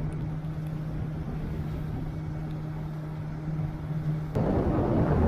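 Boat engine running at a steady speed with an even drone. About four seconds in, a louder rushing noise suddenly takes over.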